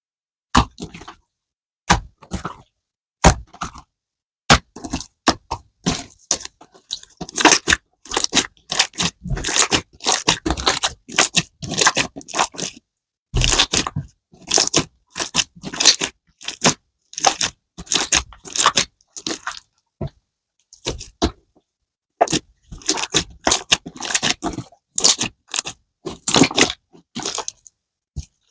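Slime being squeezed and pressed by hand: a dense run of crunchy, crackling clicks and pops, coming in short runs with brief silent gaps.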